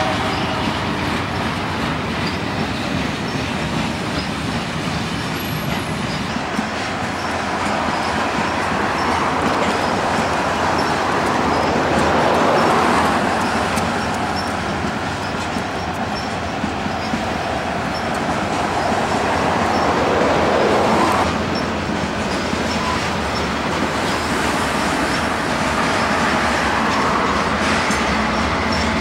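Long freight train of covered hopper cars rolling steadily past, a continuous rumble and clatter of steel wheels on rail that swells louder twice. Mid-train Canadian Pacific diesel locomotives come by near the end.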